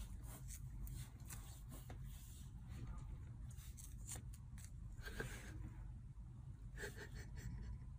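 Quiet room sound with a steady low hum and scattered light clicks and rubbing as a kitten paws at a small plastic piece on a tiled floor.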